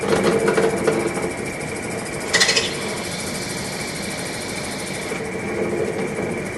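CBN mounted point spinning in a machine chuck with a steady high whine, grinding the inside face of a hollowing cutter under light pressure with a hiss. The grinding gets rougher near the start and again in the second half, with a brief louder scrape about two and a half seconds in.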